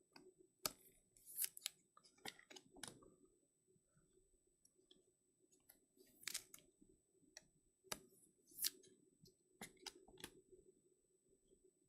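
Faint handling noises: scattered light clicks and rustles, a few louder ones spread through, over a faint steady hum.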